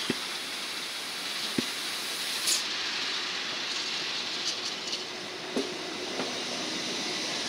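ICE T (DB Class 411) electric multiple unit rolling past along a station platform: a steady hiss with a few sharp clicks from the running gear, and a brief higher hiss about two and a half seconds in.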